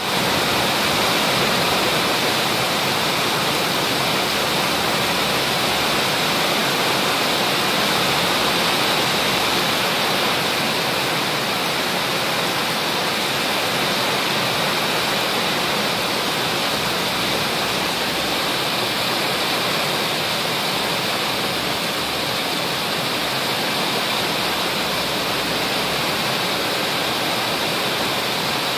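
Heavy monsoon rain pouring steadily, a dense, unbroken hiss of rain on paving, pool water and foliage.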